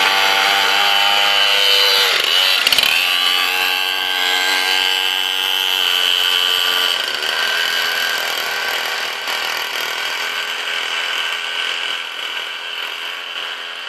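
Minibike's small engine revving as it pulls away, its pitch rising and falling with the throttle. The engine note fades steadily as the bike rides off.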